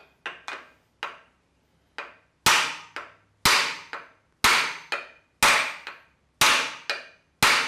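Hammer blows on the oil pump housing of a Toyota 4A-FE engine, beating it off a crankshaft timing gear that is rusted onto the crankshaft. A few light taps come first, then a steady rhythm of heavy blows about once a second with lighter ones between them, each with a short metallic ring.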